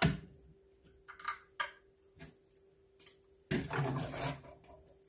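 Kitchen handling noises: a dull knock at the start, a few light clicks and taps, then about a second of clattering noise, over a faint steady hum.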